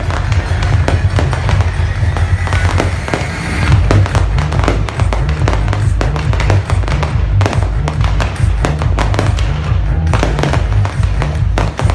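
Fireworks going off in a dense run of rapid bangs and crackles, with loud music with a heavy bass playing underneath.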